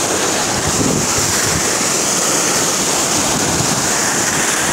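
Sea surf washing and foaming over rocks along the shore: a steady rush of breaking waves, with wind buffeting the microphone.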